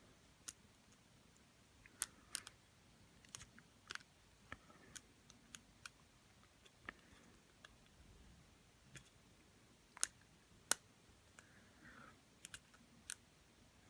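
Faint, irregular metallic clicking of a pick and tension wrench working the pin stack of a Silverline padlock: pins clicking as the tension is eased on and off to set a spool security pin. Two of the clicks, about ten seconds in and just after, are louder than the rest.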